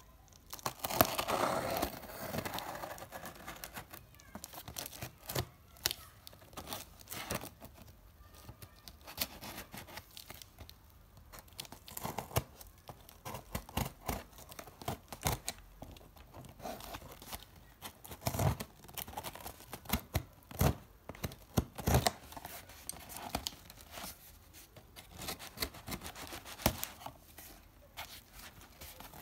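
Close-up handling sounds: packaging torn and crinkled, then many scattered clicks and taps.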